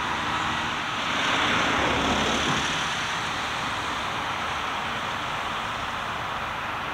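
Jet aircraft engine noise: a steady rushing roar that swells about a second in and eases back by about three seconds.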